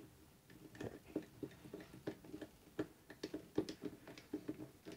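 Screwdriver driving a screw into the turntable's mechanism plate, giving light irregular clicks and ticks, several a second, starting about half a second in.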